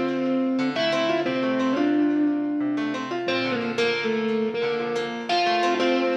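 Background music: a piano or electric-piano melody over plucked strings, notes changing about every half second.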